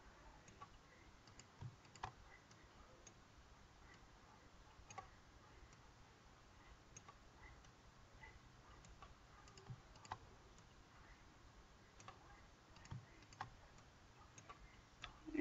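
Faint, scattered clicks of a computer mouse and keyboard, a second or a few seconds apart, over near silence.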